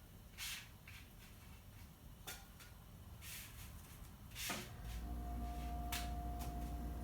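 Short scrapes and clatters of cooking utensils against a flat-top griddle. About five seconds in, a steady electrical hum starts and keeps going.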